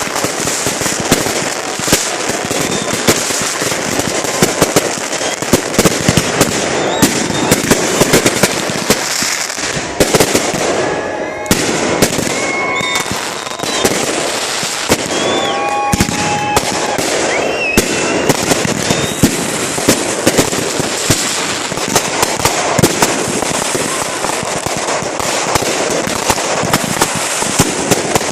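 Fireworks going off: dense, continuous crackling and popping with many sharp bangs. A few short whistling tones sound in the middle.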